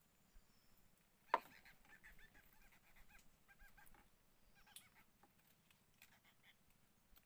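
A sharp click about a second in, then a bird's faint run of short, rapidly repeated chirping notes, with more calls near the end.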